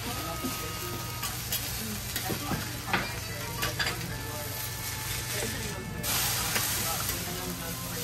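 Okonomiyaki sizzling on a hot steel teppan griddle, with metal spatulas scraping and clicking against the griddle several times in the middle. The sizzle grows louder about six seconds in.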